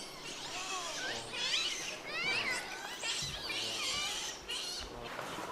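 Birds singing in forest: many overlapping high chirps and whistles, some in quick runs of falling notes.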